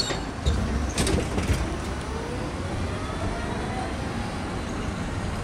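Street traffic: a motor vehicle passing, with a faint tone rising slowly in pitch over a low rumble. A few sharp knocks come in the first second and a half.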